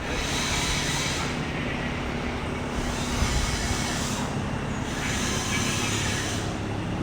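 Vehicle running steadily, a low engine hum, with three spells of hissing noise laid over it.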